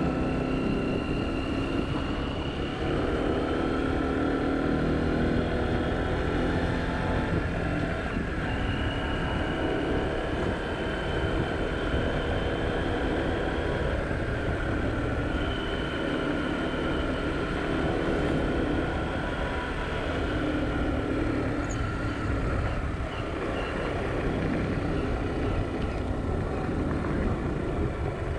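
A vehicle engine running steadily with road noise underneath, its pitch drifting up and down a little as it goes.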